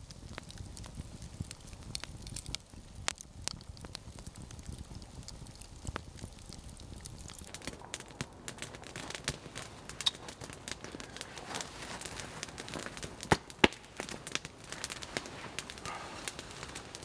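Campfire crackling with irregular small snaps, and two louder pops in quick succession about three-quarters of the way through.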